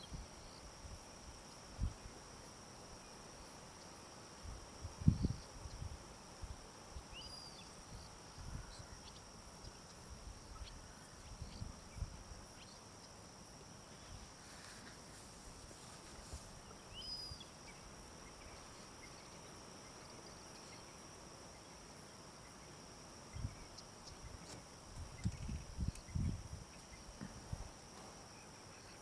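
Quiet bush ambience: a steady high-pitched insect drone with a few short bird chirps, and scattered low thumps, the loudest about five seconds in and again near the end.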